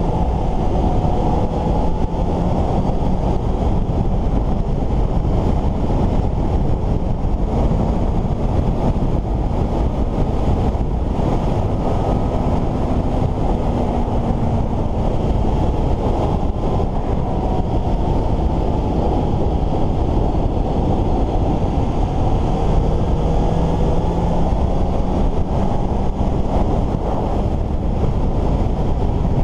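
Heavy wind rush on the microphone of a riding motorcycle, with the Suzuki GSX-S750's inline-four engine underneath, its note slowly rising and falling with the throttle through the curves.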